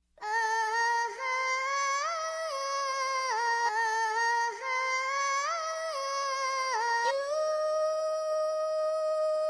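Wordless humming of a slow melody in a single voice, stepping and bending between notes, then settling on one long held note about seven seconds in.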